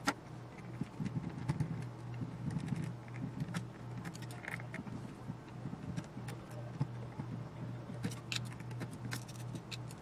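Small metallic clicks, taps and rattles of a screwdriver and loose parts being handled while unscrewing parts from a metal instrument chassis, over a steady low hum.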